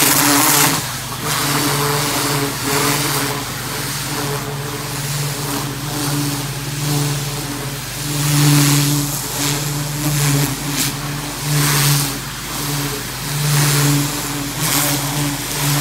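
Pressure washer running, its low motor hum swelling and easing, with the hiss of the high-pressure water jet blasting into soil and weeds in repeated bursts.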